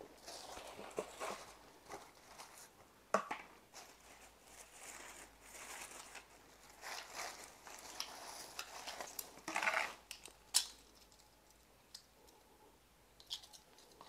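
A plastic bag rustling and crinkling in irregular bursts as it is handled, with a few sharp clicks or knocks, the loudest about three seconds in and just after ten seconds.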